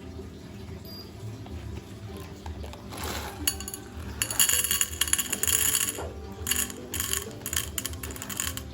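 Background music, with a run of bright clinks and rattles about three seconds in, like hard objects knocking on glass or metal during coffee-making.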